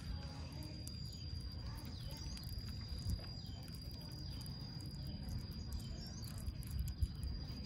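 Baby otter chewing raw catfish, with soft clicks and a couple of louder smacks about three seconds in and near the end. A steady high-pitched insect drone and a few short high chirps run underneath.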